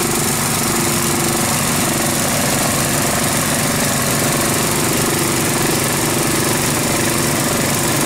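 The gasoline engines of a floating gold dredge running steadily and loud, with water rushing through the sluice.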